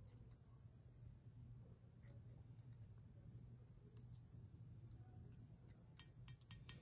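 Near silence with a low steady hum, broken by faint, sparse metallic clicks that come more often near the end. These are small parts of a Boito Miura 1 shotgun's firing mechanism being handled as a firing-pin spring is seated in its hole.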